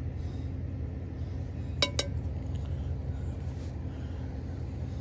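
A metal spoon clinking twice against the cast-iron Dutch oven, two sharp ringing taps about a fifth of a second apart about two seconds in, over a steady low rumble.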